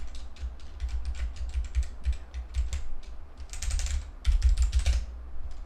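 Keys of a Gamakay K61 mechanical keyboard with Gateron switches being pressed over and over, a steady patter of clacks that quickens into two fast runs a little past halfway.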